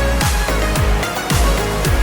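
Electronic background music with a heavy bass drum hitting about twice a second, each hit dropping in pitch.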